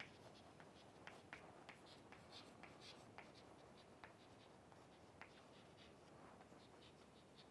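Chalk writing on a chalkboard: faint, irregular taps and scratches of the chalk strokes.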